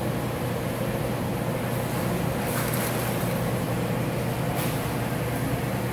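Underwater treadmill running with a steady low hum, water sloshing and splashing around a Bernese Mountain Dog walking in the tank.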